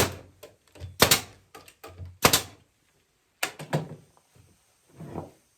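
A handful of separate wooden knocks and thunks from walnut rocking chair parts being worked during assembly.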